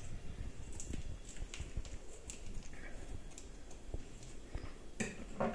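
Faint, scattered clicks and crinkles as a small seasoning sachet is handled and snipped open with scissors.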